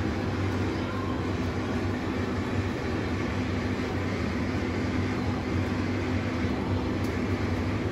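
Steady low machine hum with an even rushing noise, the running din of commercial kitchen equipment around vertical doner grills.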